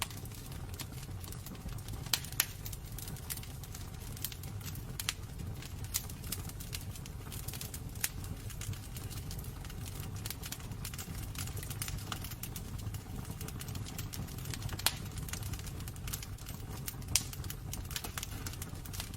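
Wood fire burning in a fireplace: a steady low rumble of flames with irregular crackles and pops from the burning logs, a few of them sharper than the rest.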